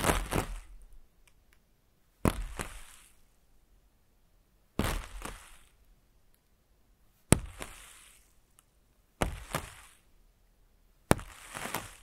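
Water splashing onto a wet, droplet-covered surface in six separate bursts at uneven intervals, each a sharp crack followed by about a second of fading hiss.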